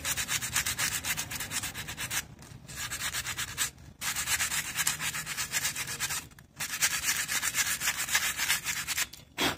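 Sandpaper rubbed back and forth in quick short strokes across the friction linings of motorcycle drum-brake shoes, scuffing off their glazed shiny surface to expose fresh lining. The rasping strokes come in spells broken by a few brief pauses.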